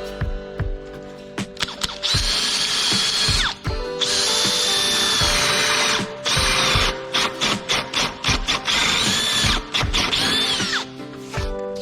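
Electric drill boring into timber in four runs of a few seconds each, its whine sagging in pitch as the bit bites, with short knocks between runs. Acoustic guitar music plays underneath.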